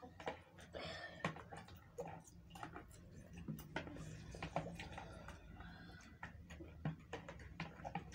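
Quiet eating sounds: metal spoons clicking and scraping against plastic bowls in small irregular taps.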